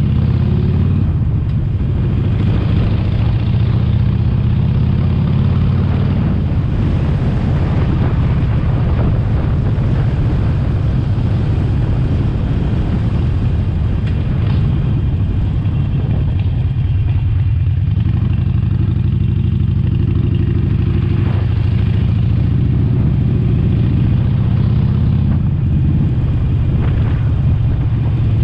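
Harley-Davidson Sportster Forty-Eight's air-cooled V-twin engine running loud and continuously as the motorcycle is ridden.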